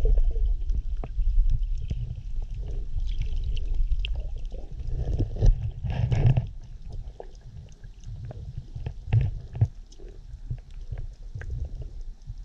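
Underwater sound heard through a GoPro's waterproof housing: a low muffled rumble of moving water with many scattered faint clicks, swelling to a louder rush about six seconds in and then settling quieter.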